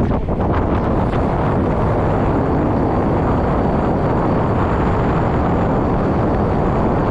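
Wind buffeting the microphone while riding: a steady, loud rush and rumble that holds even throughout.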